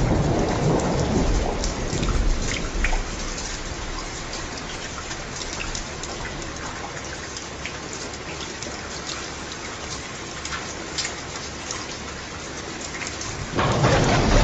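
Steady rain falling, with scattered individual drops ticking. A rumble of thunder fades away over the first couple of seconds, and another loud thunder rumble breaks in suddenly near the end.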